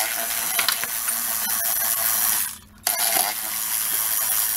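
Cordless electric ratchet running as it spins off a bolt in a car's engine bay, in two runs of a couple of seconds each with a short pause between.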